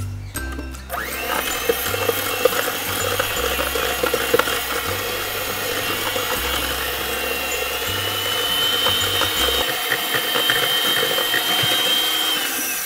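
Electric hand mixer running in a stainless steel bowl, beating butter, sugar and eggs into cake batter. Its steady motor whine starts about a second in, rises a little in pitch partway through, and stops just before the end.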